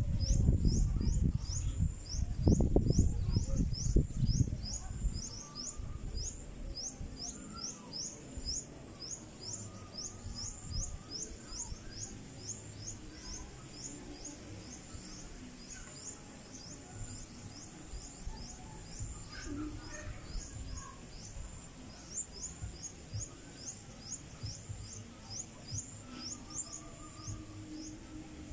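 A high-pitched chirp repeats steadily, about twice a second, throughout. In the first few seconds a louder low rumble on the microphone lies under it.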